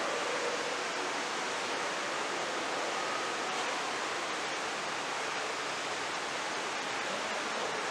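Steady rush of running water, an even hiss that holds at one level throughout.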